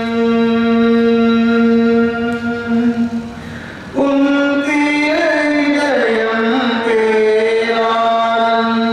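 Liturgical chant sung at Mass: a singing voice holds a long steady note, breaks off about three seconds in, then takes up a new note a second later that bends up and down before settling into another long held note.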